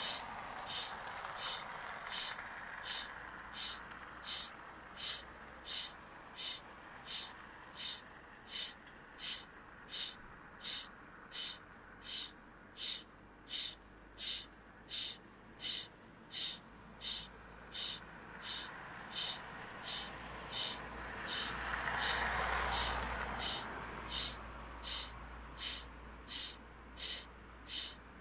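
A sharp tick repeating steadily about one and a half times a second, over a faint hiss. A low rumbling whoosh swells up and fades away about twenty-two seconds in.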